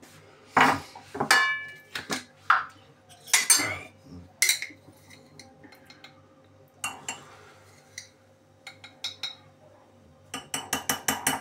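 Dishes and cutlery being handled: a string of separate clinks and knocks, one ringing briefly like glass, then a quick run of clinks near the end.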